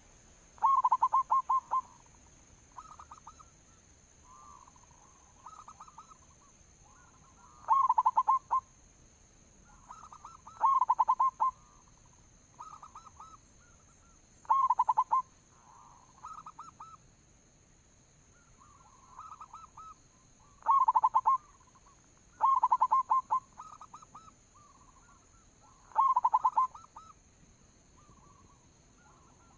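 Zebra dove (perkutut) singing its rolling, stuttering coo song, phrase after phrase. Loud phrases come every few seconds, with fainter phrases between them, as from a second dove farther off.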